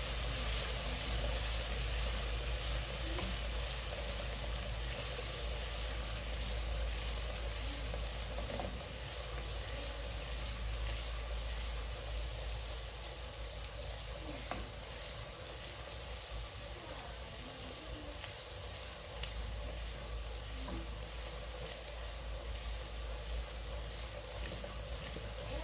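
Onions and ginger-garlic paste sizzling in hot cooking oil in a pot, stirred with a spoon, with a few faint clicks of the spoon. The sizzle slowly gets quieter.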